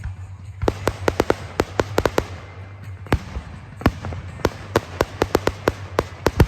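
Fireworks going off as a string of sharp, irregular pops and cracks, several a second at the busiest, over a steady low hum.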